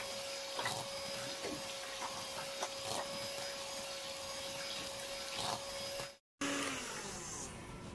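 3D-brand electric hand mixer running steadily with a motor whine, its beaters knocking now and then against the stainless steel bowl as they whip a runny batter. It cuts off abruptly about six seconds in.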